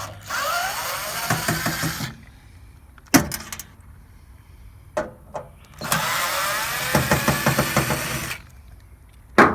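Cordless drill running in two bursts of about two seconds each, its motor whine rising in pitch as it spins up, on a weakly charged battery. A few sharp clicks or knocks come between and after the bursts.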